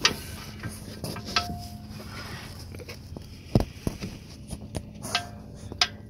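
Oil drain pan being capped and handled: scattered clicks and knocks, with one heavier thump about three and a half seconds in and two short squeaks.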